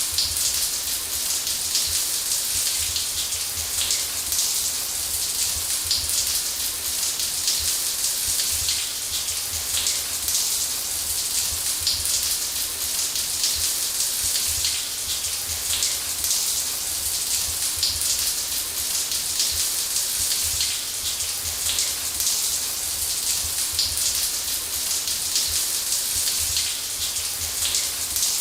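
Shower spray running steadily: an even hiss of water, strongest in the high range, with fine pattering of drops and a low rumble underneath.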